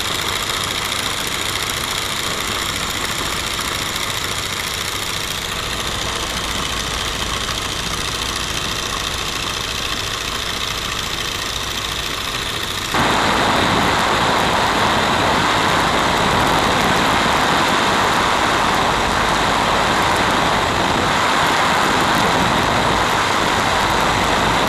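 Radial engine of an open-cockpit biplane running steadily in flight, mixed with the rush of wind past the airframe. About halfway through the sound abruptly becomes louder and brighter, then holds steady.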